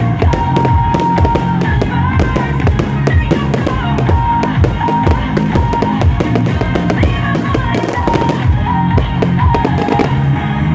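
Fireworks display: rapid bangs and crackles of fireworks over loud music, the bangs thinning out near the end.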